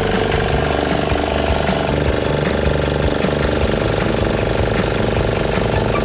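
MX-170 D single-cylinder diesel engine running steadily with a fast, hard clatter.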